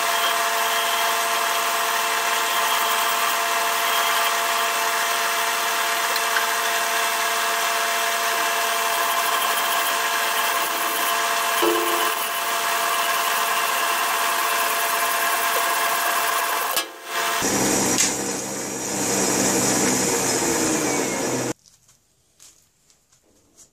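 Metal lathe running steadily with a hand file held against the spinning brass ramrod pipe. The sound changes briefly about three-quarters of the way through, then stops abruptly near the end as the lathe is switched off, followed by a few faint clicks.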